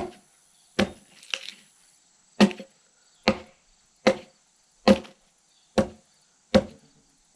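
Axe blows chopping into the side of a log being hewn, about ten strikes at a steady pace of a little more than one a second, each a sharp woody chunk. Insects shrill steadily behind.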